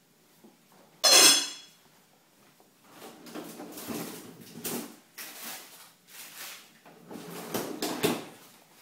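Loose white wooden shelf panels being pushed and rubbed by a toddler's hands, knocking and scraping against each other and the tile floor. A brief, loud, high squeal comes about a second in, followed by a run of uneven scrapes and knocks.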